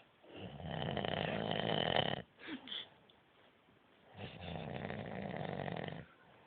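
A sleeping man snoring: two long snores of about two seconds each, with a quiet pause between them.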